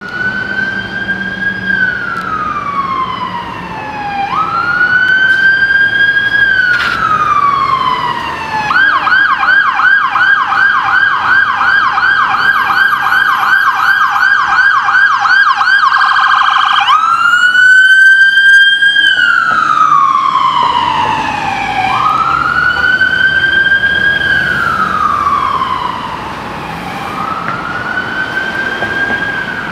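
Electronic siren on a 2017 Ford Transit fire-paramedic squad vehicle responding to a call. It runs a slow rising-and-falling wail, switches to a fast yelp for about seven seconds in the middle, then goes back to the wail. It is loudest about two-thirds of the way through.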